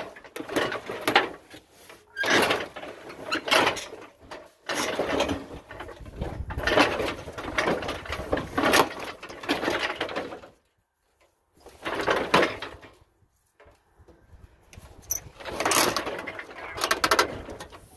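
Metal clanking and scraping in irregular bouts, with short pauses: a scrap washing machine and its lifting chain being wrestled around by hand on a homemade crane.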